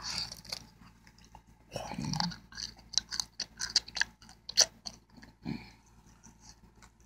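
Close-up chewing of a homemade breaded chicken tender: a run of quick, sharp, wet mouth clicks and bites, densest in the middle, with a brief low hum from the eater about two seconds in.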